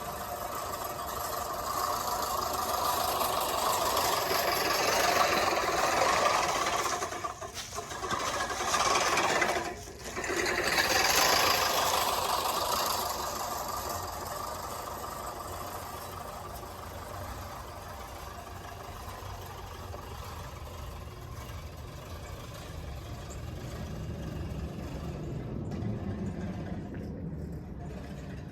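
Push reel lawn mower cutting grass: a steady whir of its spinning cylinder blades that swells in the first half, with two brief breaks, then carries on more quietly.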